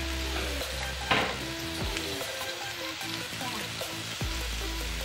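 Sliced red onions sizzling in hot oil in a frying pan, stirred with a wire spider skimmer, with one louder clatter about a second in. Background music plays underneath.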